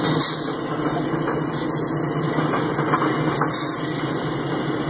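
Two CSX EMD diesel locomotives running as they haul a freight train past, a steady engine rumble with a hiss over it.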